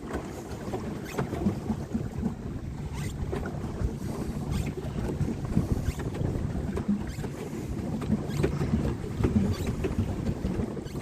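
Water splashing and sloshing around a small paddle boat on choppy water, with wind buffeting the microphone.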